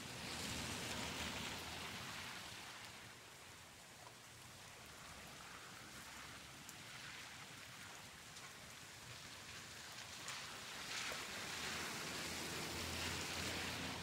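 Exterior rain ambience in a residential area: steady rain hissing with scattered drop ticks. It swells louder in the first few seconds and again over the last few seconds.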